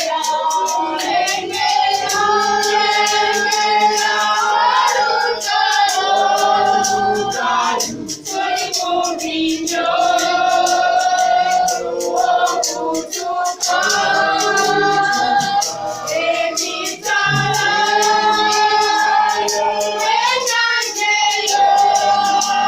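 A choir singing a church song in several voices, with held notes, over music with a steady percussion beat.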